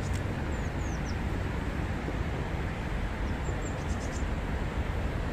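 Steady low outdoor rumble, with a few faint, short high bird chirps about a second in and again near four seconds.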